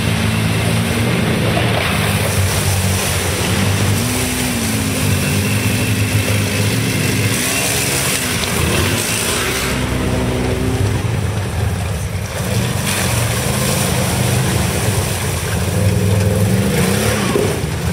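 ATV engines of a Polaris Sportsman and a Can-Am Outlander revving up and down repeatedly as the quads drive through shallow water, with water splashing from the tyres.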